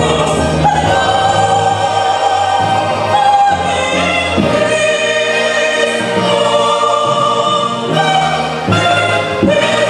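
Church choir singing a gospel song, a lead singer on a microphone over the choir, with steady low accompaniment notes that change every few seconds.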